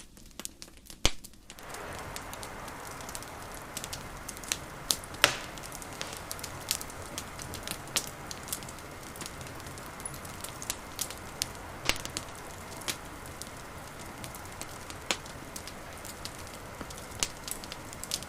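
Campfire crackling: a steady rush of burning with frequent irregular sharp pops and cracks. The steady rush comes in about a second and a half in, and one of the loudest pops falls about five seconds in.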